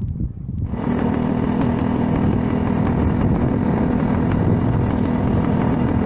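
Motorcycle engine running at a steady speed, cutting in abruptly within the first second.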